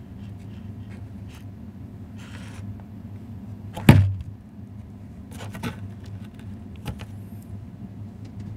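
A steady low hum, with the sounds of an opened laptop being handled over it: one sharp knock about four seconds in, then a few lighter clicks.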